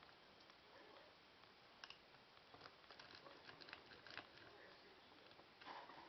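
Faint small metallic clicks and scrapes of a lock pick raking and setting the pins of a five-pin cable lock held under a tension wrench, thickest in the middle and with a slightly louder scrape near the end.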